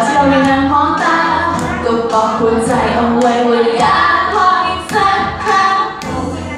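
A woman singing into a handheld microphone over a backing track with a steady beat.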